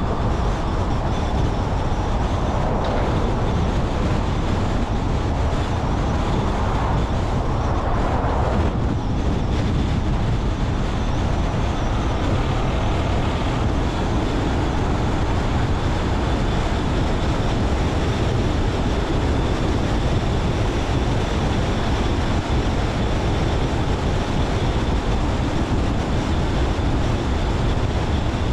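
Steady road noise of a car being driven: tyre rumble and engine hum. A swell in the middle range rises a few seconds in and fades by about nine seconds.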